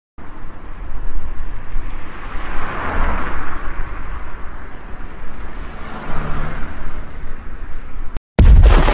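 Logo-intro sound effects: a deep rumbling whoosh that swells twice, then cuts out briefly and gives way to a loud sudden hit near the end.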